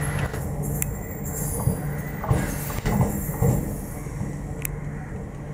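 Electric multiple-unit train running in around a curve: a steady low hum with scattered sharp clicks from the wheels over the rails, easing off slightly near the end.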